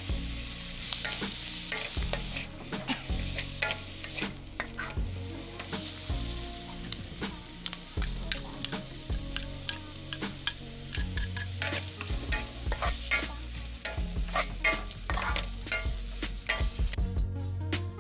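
Food sizzling in a hot metal wok while a metal spatula stirs it, with frequent clicks and scrapes of the spatula against the wok.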